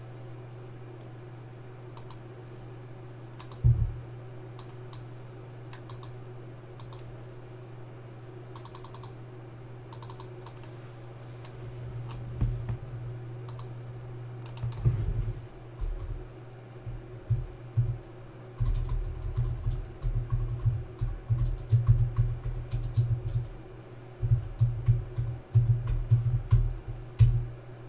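Computer keyboard typing: a few scattered keystrokes at first, then rapid runs of key clicks through the second half, over a steady low hum.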